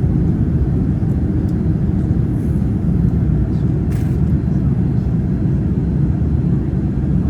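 Steady low rumble of a Boeing 787-10 airliner's cabin in cruise flight: engine and airflow noise heard inside the cabin. There is a brief click about four seconds in.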